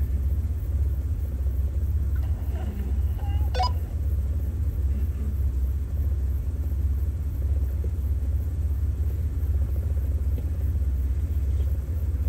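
Jeep Wrangler TJ engine idling, heard from inside the cab as a steady low rumble. One short click about three and a half seconds in.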